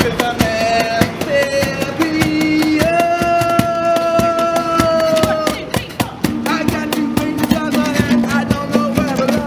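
Live acoustic band: two acoustic guitars strummed with a cajón beating time, and a voice singing long held notes, then a wavering melody in the second half.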